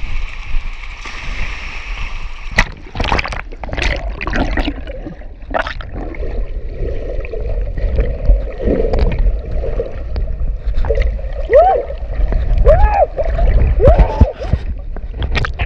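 Churning seawater heard from below the surface through a waterproof camera housing: deep rumbling water movement with gurgling, several sharp knocks in the first few seconds, and a few short bubbling chirps near the end.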